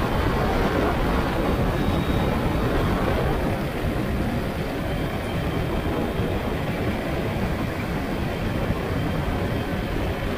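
Ultralight aircraft's engine and propeller running steadily as it taxis over a rough dirt field, easing slightly about three and a half seconds in.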